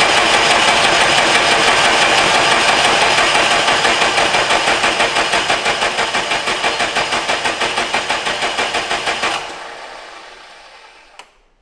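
Cummins 3.8 four-cylinder diesel cranked on its starter for about nine seconds without catching: a steady whir that pulses about five times a second, then cuts off and dies away. The engine will not fire, which the mechanics think may be down to removed EGR sensors.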